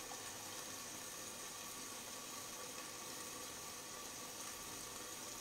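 Faint steady hiss of hake hearts cooking in a pan on a gas hob, with no knocks or clatter.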